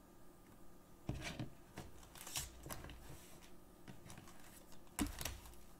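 Sealed foil trading-card packs being handled and pushed into stacks on a tabletop: soft crinkling and rubbing with a few light knocks. The knocks are loudest about a second in and again near the end.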